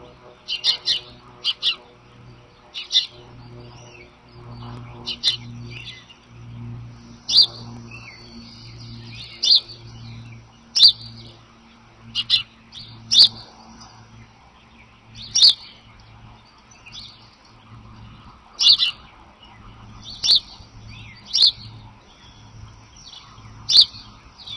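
Wild birds chirping: short, sharp, high calls repeated every second or two, some in quick pairs, over a faint low pulsing hum.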